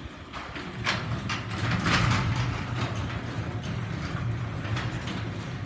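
LiftMaster garage door opener running after a keypad press, its motor humming steadily with some knocks and rattles as the door travels, then winding down at the end.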